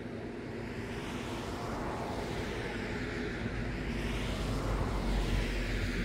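Rushing rumble of a passing vehicle, growing louder to a peak near the end, with a sweeping swish in its hiss.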